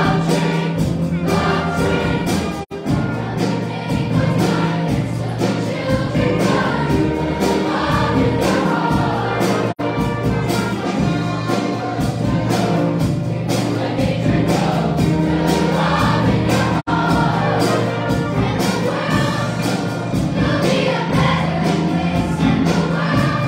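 A large middle-school choir singing with a string orchestra, the voices in full chorus over sustained string chords. The sound cuts out for an instant three times.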